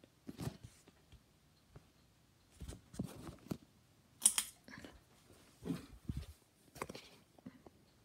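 Irregular rustling and clicking handling noise. The sharpest click, just after four seconds in, comes as a hand takes hold of a ceiling fan's pull chain.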